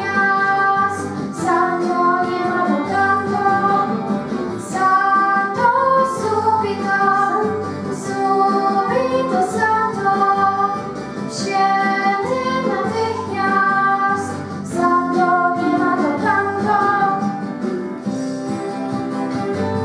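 A girl singing a slow song over acoustic guitar accompaniment.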